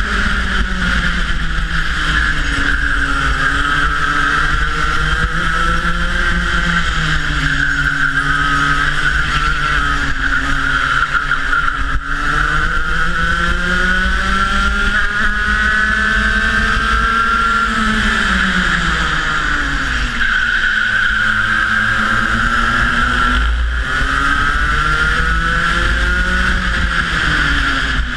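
Rotax Max 125cc two-stroke kart engine at racing speed, heard onboard. Its revs dip about four seconds in, climb steadily until a dip at around eighteen to twenty seconds, then climb again and ease near the end, lifting for corners and accelerating out of them.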